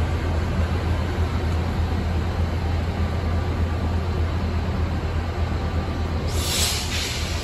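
Metro L Line light rail train (Kinki Sharyo P3010 car) pulling away from the platform: a steady low rumble that eases slowly as it moves off, with a brief hiss about six seconds in.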